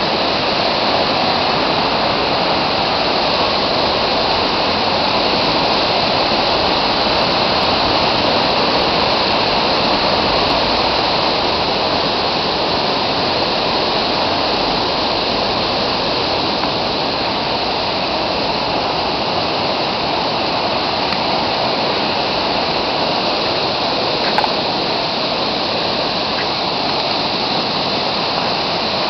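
A river in flood: swollen, fast floodwater rushing in a loud, steady wash of water noise.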